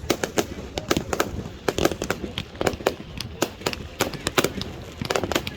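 Fireworks going off: an irregular string of sharp bangs and pops, a few a second.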